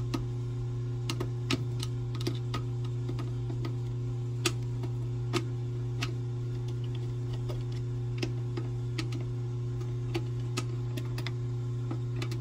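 Irregular small metallic clicks and taps of a screwdriver working the terminal screws on an AC unit's contactor, disconnecting the compressor leads, over a steady low electrical hum.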